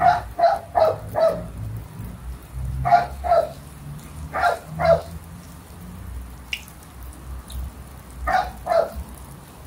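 A dog barking: four quick barks, then three pairs of barks spaced a few seconds apart, over the faint sizzle of oil frying.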